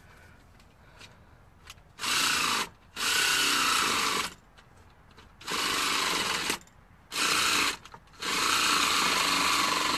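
Small battery-powered pumpkin carving saw running in five short bursts as it cuts into a pumpkin, the last burst running longest.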